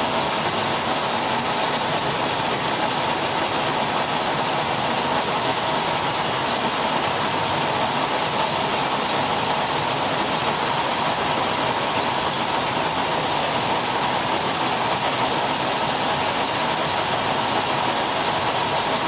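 Milling machine running steadily while it cuts a keyway in a steel shaft: an even machine noise with a faint whine, unchanging throughout.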